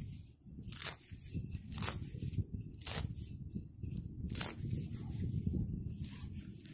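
A digging blade cutting into grass turf: four short sharp tearing scrapes of roots and soil about a second apart, over a steady low rumble.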